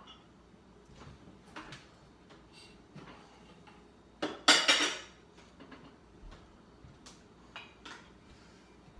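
Dishes and cutlery clinking as they are lifted out of a dishwasher and put away, with one loud, ringing clatter of crockery being set down about halfway through.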